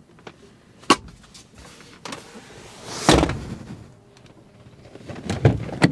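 Handling noises in the rear cabin of a 2008 BMW 550i. A sharp click comes about a second in, a heavier thump around three seconds in, and a couple of clicks near the end, as the fold-down rear armrest is put away and the rear door is opened.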